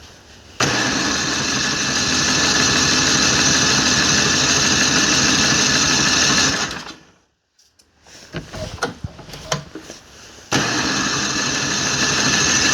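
MTD snowblower's electric starter cranking the engine in two long bursts, about six seconds and then again near the end, with a few clicks between; the engine turns over but does not fire.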